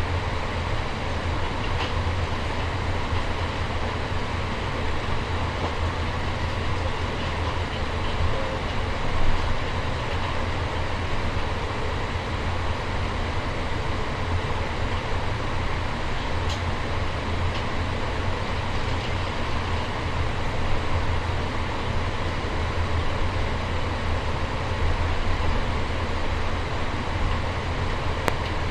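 Steady low rumble and hum of an Airbus A350-900 with its Rolls-Royce Trent XWB engines running, heard inside the passenger cabin. It holds at an even level, with a few faint clicks.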